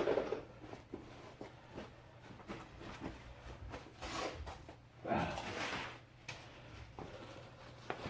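Workshop handling sounds: a sharp knock at the start, scattered light clicks, and two longer scraping or rustling noises about four and five seconds in, as parts and tools are handled.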